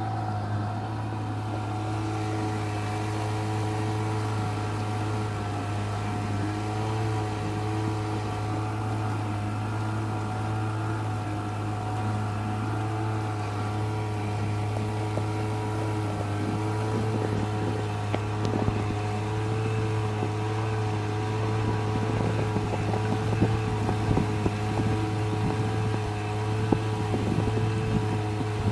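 Boat engine running steadily: a constant low drone with steady tones above it. Scattered short clicks and crackles come in over the second half.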